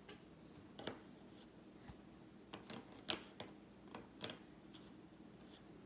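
Faint, irregular clicks and taps from handling trading cards and their packaging.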